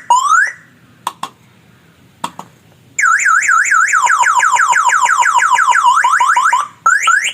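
Budget vehicle security alarm sounding through its small speakers. A rising chirp and a few clicks come first. About three seconds in, the siren starts, cycling from fast up-and-down warbles into rapid falling sweeps. Near the end it is cut off by two rising chirps. The alarm has been set off by being touched while locked.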